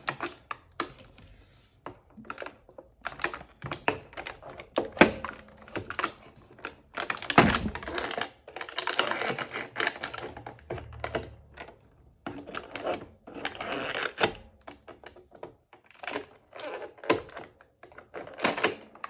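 Hands opening a cardboard advent calendar door and handling its packaging: irregular clicks and taps, with two longer stretches of rustling around the middle.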